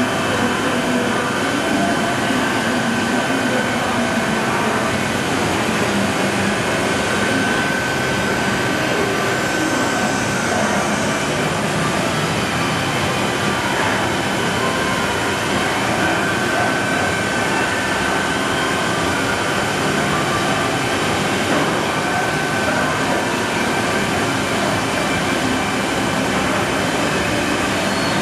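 Johnford DMC-3000 gantry-type vertical machining center running a program as a dry run, with axes and spindle moving but no cutting: a steady mechanical noise with a steady high whine running through it.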